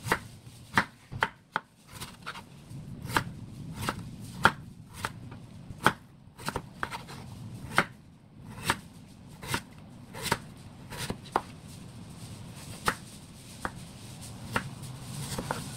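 Chef's knife slicing a Korean radish into thin rounds on a wooden cutting board, the blade knocking sharply on the board with each slice. The strokes come about one to two a second, unevenly, and thin out near the end.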